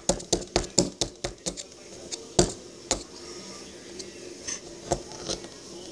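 A small digging stick chipping and scraping at a hard, stone-like dig-kit block: a quick run of sharp clicks, about five a second, for the first second and a half, then a few scattered taps and faint scrapes.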